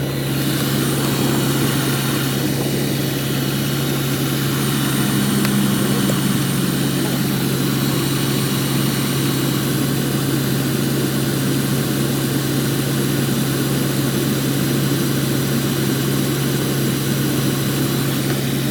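A vehicle engine idling with a steady, unchanging hum.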